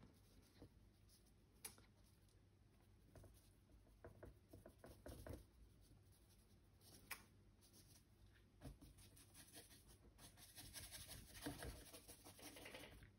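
Faint scratching of a paintbrush laying oil paint onto a canvas in short feathery strokes, with a few soft ticks; the strokes come thicker near the end.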